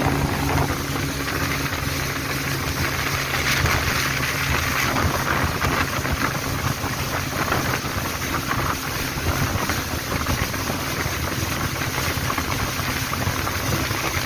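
A boat's engine running at a steady drone while under way on the river, with wind buffeting the microphone.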